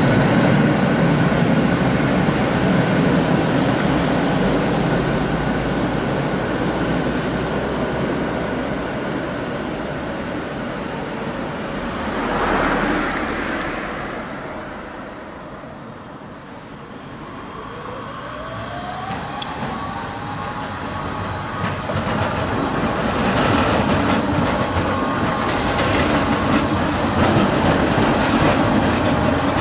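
City trams running on street track. One articulated tram rolls past close at the start and its rumble fades away. After a quiet spell a tram's motors whine in rising tones as it gathers speed, and another tram passes close near the end, its wheels clicking over the rails.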